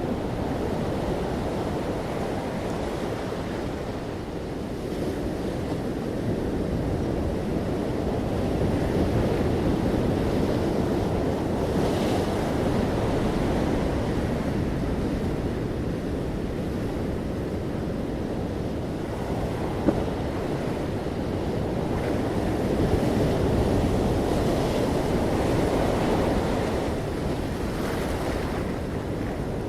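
Ocean waves breaking on the shore, a continuous wash that swells and eases every few seconds, with a brief hiss of surf about twelve seconds in.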